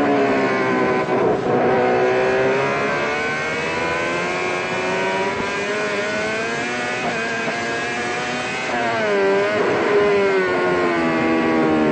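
Racing motorcycle engine running hard at high revs. Its pitch climbs slowly for several seconds, dips and rises quickly about nine seconds in, then eases down.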